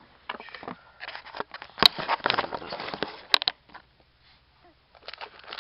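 Handling noise as the camera is picked up and turned around: rustling and crackling against the microphone, with two sharp knocks about two and three and a half seconds in.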